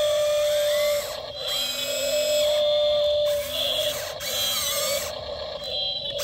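Small electric motors of a radio-controlled model excavator whining steadily, the pitch shifting up and down as it works, with short dips about a second in and around four seconds.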